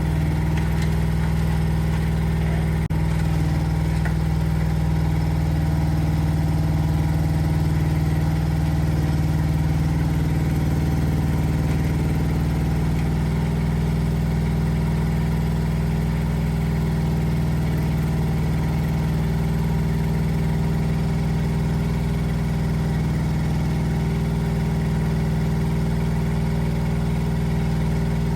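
Engine of a Rippa R10 Eco mini excavator running at a steady speed, a constant low hum.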